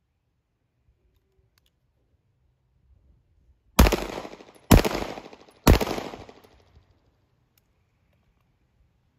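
Three pistol shots about a second apart, each followed by an echo that dies away over about a second.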